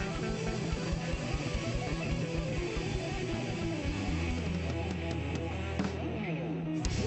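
Music led by guitar over a steady beat, with a falling slide in pitch near the end.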